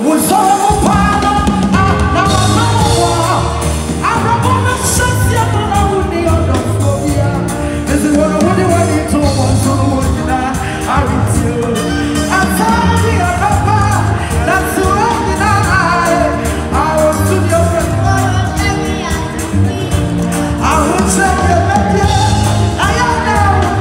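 Live gospel music: a female singer with a full band, bass guitar and drums keeping a steady beat, heard from the audience in a large hall.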